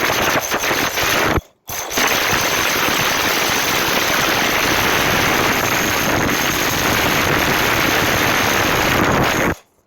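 Electric drill running a 65 mm concrete hole saw into a wall, a loud grinding drone that stops briefly about a second and a half in, then runs on steadily until it stops near the end.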